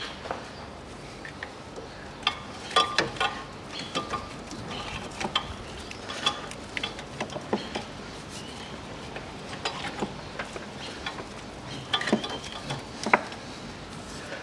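Irregular light clicks, taps and scrapes of a timing-belt cover and nearby engine-bay parts being worked loose and eased down by hand, with a sharper click near the end.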